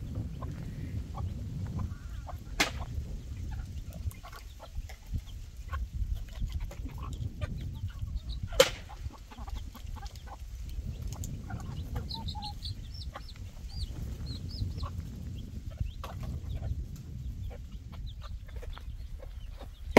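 Chickens clucking over a steady low rumble, with a sharp click about eight and a half seconds in and a run of short high calls about two thirds of the way through.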